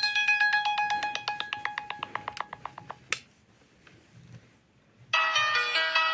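Sony Xperia XA phone ringtones. One ringtone plays a quick run of repeated notes that fades out about three seconds in, followed by a single click. After a short pause, the next ringtone starts with bright, ringing chimes about five seconds in.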